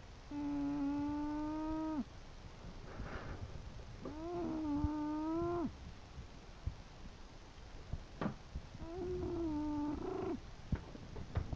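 English bulldog snoring: three long, steady, pitched snores about four seconds apart, each lasting about a second and a half, with a softer breathy sound between the first two.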